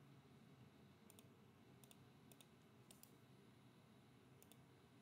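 Faint computer mouse clicks, about half a dozen spread over a few seconds, over near silence with a faint low hum.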